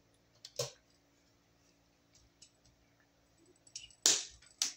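Wire strippers snipping the over-long stripped copper end off a 12-gauge wire: a few short, sharp clicks, the loudest about four seconds in and another just before the end.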